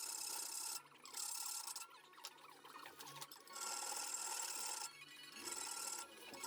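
A stainless-steel knife blade being shaped by hand with a file or abrasive: about five long rasping strokes, each up to a second or so, with short pauses between them.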